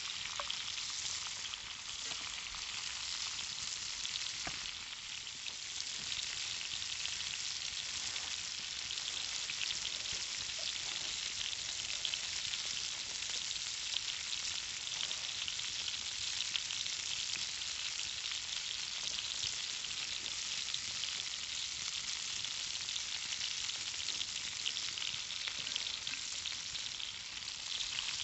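Conecuh smoked sausage links frying in a cast iron pan, a steady, dense sizzle.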